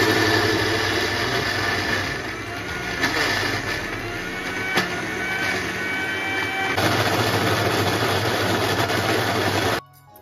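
Panasonic mixer grinder motor running at speed, grinding soaked urad dal into a wet paste, then cut off sharply near the end.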